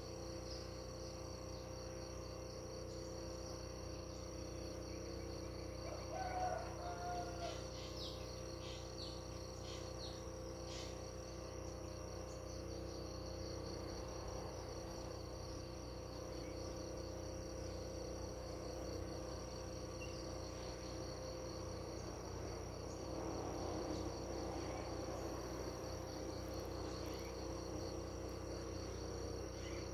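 Crickets trilling steadily in a pulsing chorus, with a few short bird chirps about six to eleven seconds in.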